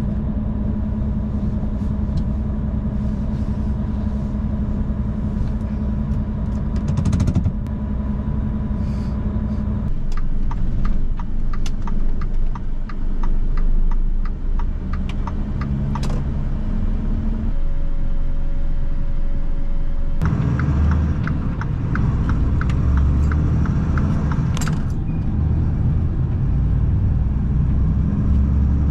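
Tractor-trailer's diesel engine running steadily, heard inside the cab. It is joined in two stretches by regular ticking at about two a second, and a short steady beep just past the middle.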